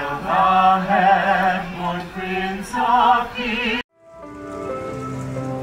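A small group of costumed carolers, men and women, singing a carol in harmony with vibrato. The singing cuts off abruptly near the end, giving way to quieter music with long held notes.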